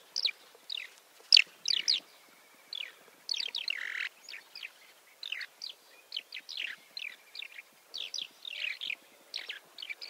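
Skylark calling: a run of short, hard chirps and rolling, buzzy 'prreet' and 'prit' notes, some in quick clusters.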